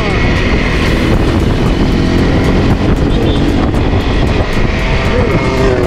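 Wind rushing over the microphone while riding a Honda CRF 250 Rally motorcycle, its single-cylinder engine running steadily underneath.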